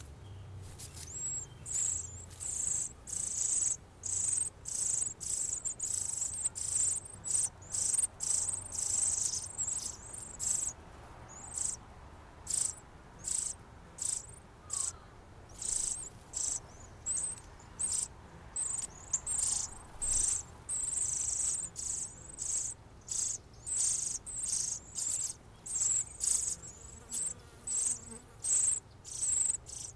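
Insect chirping outdoors in a steady rhythm, about one high-pitched chirp a second.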